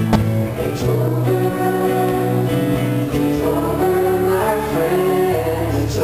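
A man singing with an acoustic guitar accompaniment.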